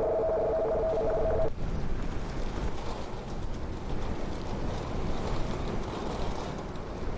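A steady two-tone electronic signal, similar to a telephone line tone, cuts off abruptly about a second and a half in. A steady rushing, rumbling noise follows, with a wavering level.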